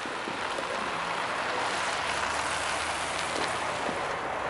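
A car drives past on a snowy road: its tyre noise swells through the middle and eases off near the end, over a low engine hum.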